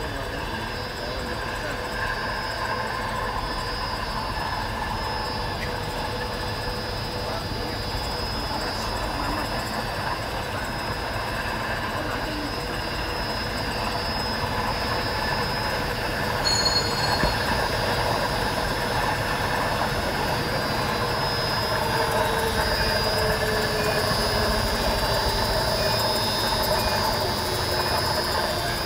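HN650R slitter rewinder running, slitting hot stamping foil into 1-inch rolls: a steady mechanical running noise with high whining tones. One tone slowly falls in pitch in the second half, the noise grows gradually louder, and there is a short high blip a little past halfway.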